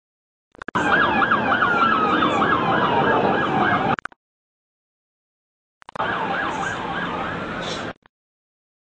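Emergency vehicle sirens. A fast yelping siren wails up and down about four or five times a second over a slower, falling wail. The sound comes in two stretches of about three and two seconds, each starting and cutting off abruptly, with dead silence between them.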